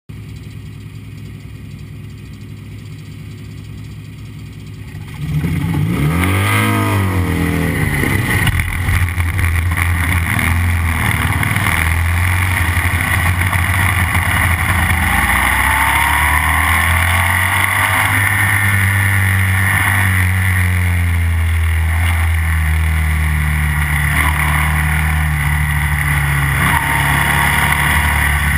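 Classic BMW racing sidecar outfit's boxer twin heard from on board. It runs quietly at first, then about five seconds in the revs rise sharply as it pulls away, and it runs hard, its pitch stepping up and down with the gear changes and throttle, over wind rush.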